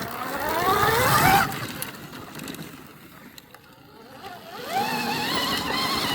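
Dirt bike engine accelerating with rising pitch for about a second and a half, then backing off suddenly. About four seconds in it revs up again and holds a high pitch.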